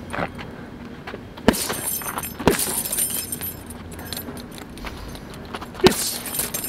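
Gloved jabs landing on a filled heavy punch bag: a few sharp thuds, the hardest about a second and a half in, a second later and near the end, with the bag's hanging chain jangling after each hit.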